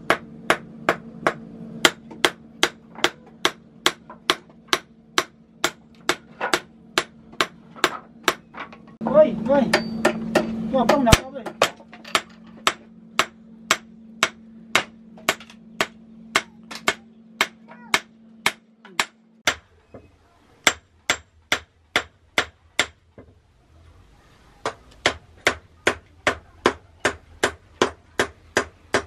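Hand hammer striking a red-hot knife blade held in tongs on an anvil: forging blows ringing out in a steady rhythm of about two a second, pausing briefly twice in the second half.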